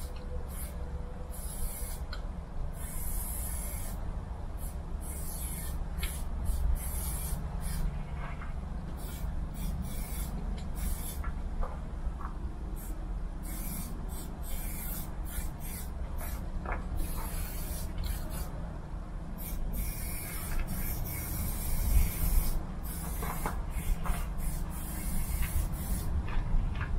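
Aerosol spray-paint can hissing in many separate bursts, some short and some lasting a second or more, as paint is sprayed on. A low steady rumble runs underneath.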